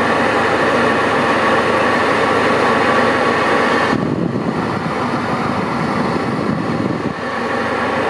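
Electric air-conditioning blowers of a classic Porsche 911 running steadily, with cold air rushing through the dash vents. About halfway through the hiss suddenly turns duller and lower.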